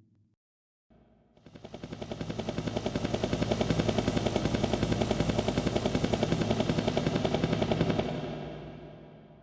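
Synthesized helicopter sound effect from a Roland SC-D70 sound module: a rapid, even rotor chop of about eight beats a second that swells in over a couple of seconds, holds steady, then fades away near the end.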